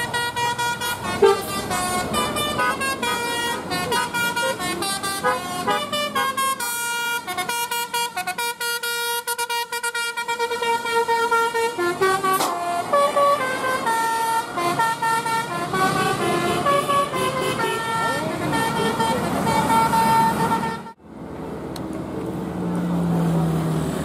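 Bus telolet horns, sets of tuned air horns playing quick melodic runs of notes, one tune after another, cutting off suddenly about twenty-one seconds in. After that, bus engine and road noise.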